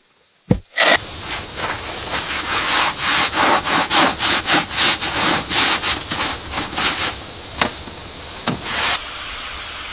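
Rhythmic rubbing or scraping strokes, about three a second, over a steady hiss. It starts after a sharp knock about a second in and eases to a plainer hiss near the end.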